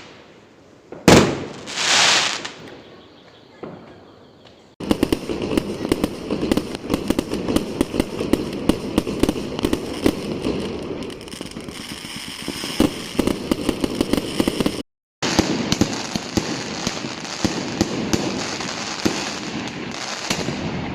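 Fireworks: a sharp bang about a second in, then a hissing burst. From about five seconds, dense rapid crackling of many small firecracker reports, broken by a split-second gap about three-quarters of the way through.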